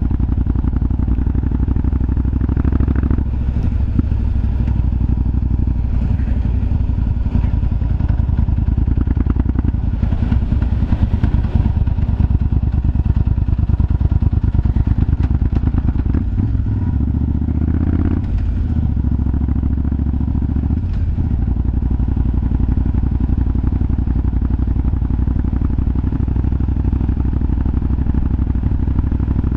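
Yamaha BT1100 Bulldog's 1100 cc V-twin running near idle, its revs rising and falling briefly a few times, with popping from the exhaust.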